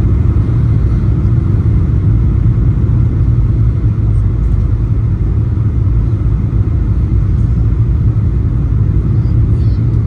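Steady low rumble of cabin noise inside a Boeing 737-900 on short final approach, from its CFM56 turbofan engines and the airflow over the fuselage and wing.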